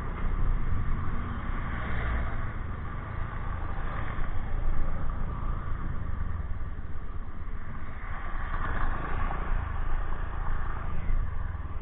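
Honda Click 125i scooter under way: engine and road noise under a heavy, fluttering wind rush on the microphone.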